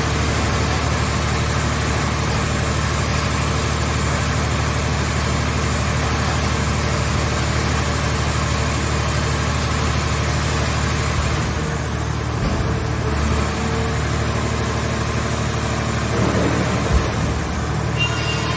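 Scrap car shell baler's engine-driven power unit running steadily, with a short knock near the end.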